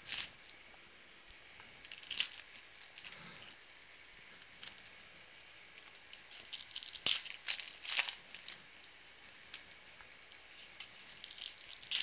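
Foil trading-card pack wrappers (2016 Panini Prizm retail packs) being torn open and crinkled in short crackly bursts, about two seconds in and again, loudest, from about seven to eight and a half seconds in.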